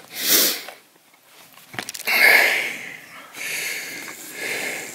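A person breathing and sniffing close to the microphone, several breaths in a row, with a few faint clicks just before the longest breath.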